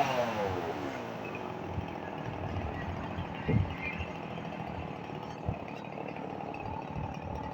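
Chainsaw coming off full throttle, its pitch falling steeply in the first second, then a low rumble with a thud about three and a half seconds in and a smaller knock about two seconds later.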